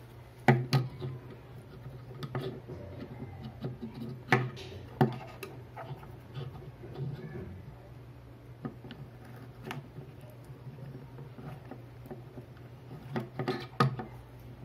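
Hands handling wires and pushing gold bullet connectors together: scattered small clicks and taps, with sharper snaps about half a second in, around four to five seconds in, and near the end, over a faint steady low hum.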